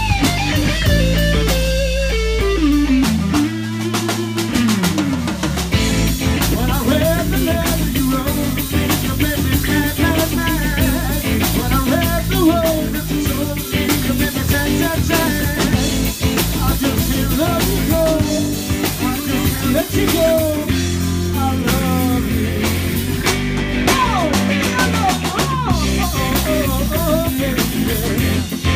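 Live rock band playing: drum kit, electric guitar and bass guitar. The bass drops out briefly about three seconds in, then the full band comes back with busier drumming.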